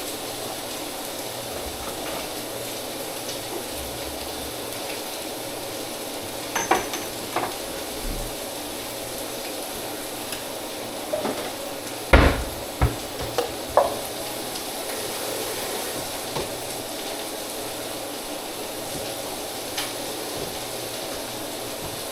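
Food sizzling in a pan, with a utensil knocking and clinking against the pan a handful of times, loudest about halfway through.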